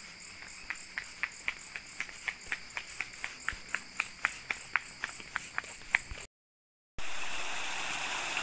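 Night chorus of crickets and other insects, steady and high-pitched, with a rapid series of sharp chirps about four a second from a nearby calling creature. After a brief cut, steady rushing of water flowing in a rice-field ditch.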